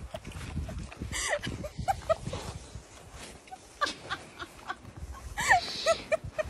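A black leopard and a Rottweiler eating raw meat: wet chewing and licking, mixed with clusters of short high squeaks about a second in and again near the end.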